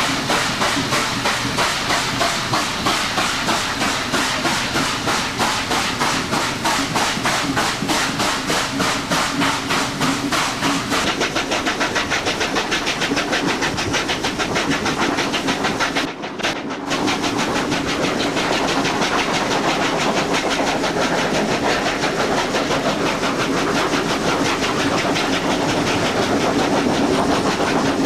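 Steam locomotive working hard on a grade, its exhaust beating fast and evenly with a hiss of steam. A brief break about halfway, then the exhaust beats carry on.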